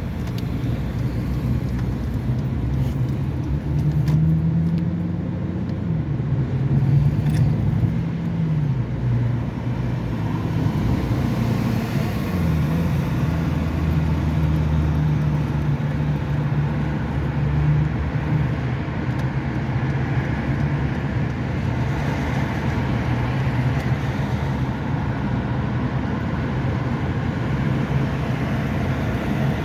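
Car driving on a road: a steady engine hum over tyre and road noise. The engine note rises a few seconds in, drops back twice, then holds steady.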